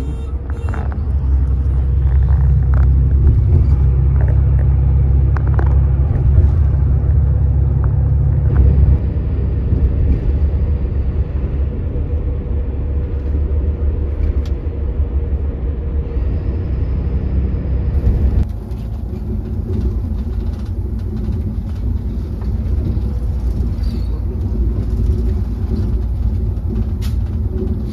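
Volvo coach running on the road, heard from inside the passenger cabin: a steady low rumble of engine and road noise. The sound changes abruptly about nine seconds in and again a little past halfway.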